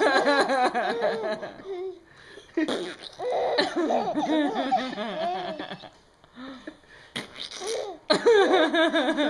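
A person laughing hard in three long fits, with short pauses between them.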